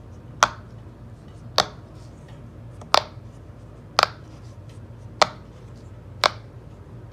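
Silicone Pop It fidget toy bubbles being pressed one at a time, a sharp pop about once a second, over a low steady hum.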